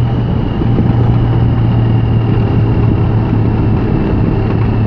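Touring motorcycle engine running at a steady cruising pace, a constant low drone under the rush of wind and road noise.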